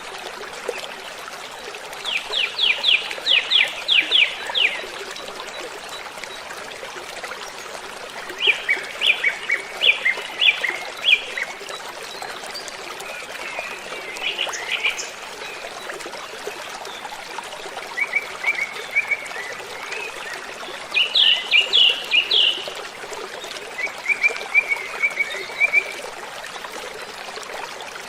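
Steady rush of a waterfall, with a songbird singing short phrases of rapid, high repeated notes every few seconds over it.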